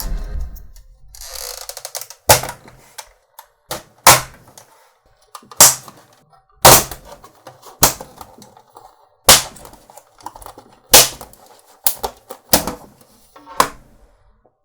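Sharp plastic clicks and snaps, about ten spread unevenly, as a PS4's plastic top cover is pried and popped off its clips, with a short scraping rustle before the first snap.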